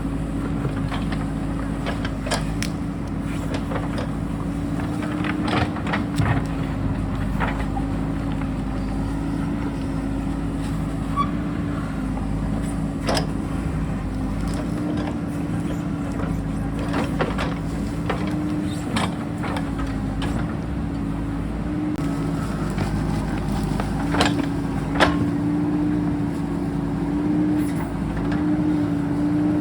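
JCB backhoe loader's diesel engine running steadily under working load, its pitch shifting slightly up and down, with irregular sharp knocks and clanks of the digging gear and rock, the loudest about 25 seconds in.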